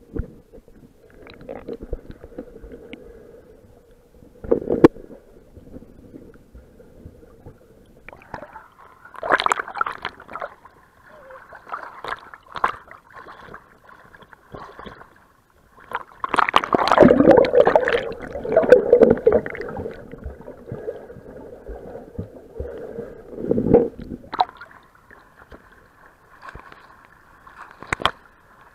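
Sea water sloshing, gurgling and splashing around a waterproof action camera, first underwater and then at the surface with spray over the lens. The splashing comes in uneven surges, loudest about nine seconds in and again from about 16 to 24 seconds, over a faint steady hum.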